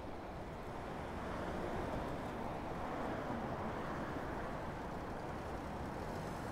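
City street traffic, a steady rumble and hiss that swells a little about two seconds in.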